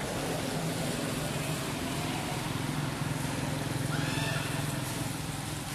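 Steady low engine hum with a noisy hiss behind it, and one brief high squealing call about four seconds in.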